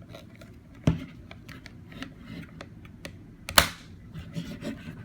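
Plastic parts of a Babycook blender bowl being handled, with small clicks and taps throughout and two louder clacks, about a second in and again midway.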